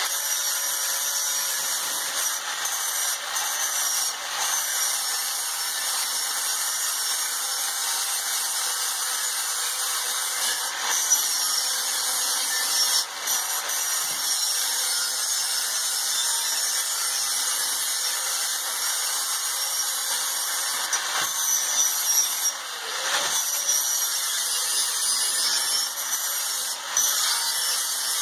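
Angle grinder running steadily against the steel forge body, its disc grinding the metal edge clean with a continuous high whine that eases briefly a few times as the disc comes off the work.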